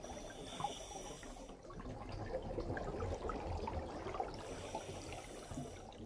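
Scuba diver breathing underwater through a regulator: a hissing inhale, a stretch of burbling exhaled bubbles starting a second and a half in, then another hissing inhale near the end.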